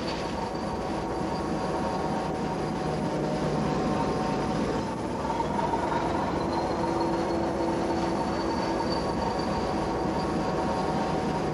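A tug's engine running steadily under wind and sea noise, a constant mechanical drone with a few steady tones in it.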